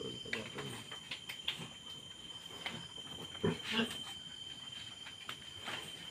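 A steady high insect trill, crickets at night, with short scattered grunts and squeaks from pigs in a farrowing pen. The loudest of these comes a little past halfway.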